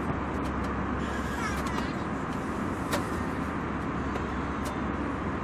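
Airliner cabin ambience: the steady rush of engine and air noise inside the cabin, with a few light clicks and knocks, the sharpest about three seconds in.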